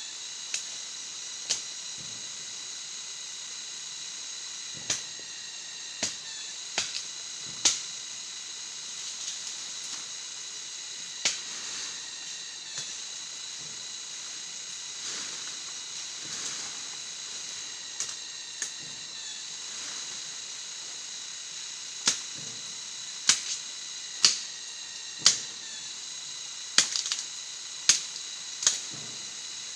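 Sharp, irregular snaps or knocks, closer together near the end, over a steady high-pitched drone of several tones.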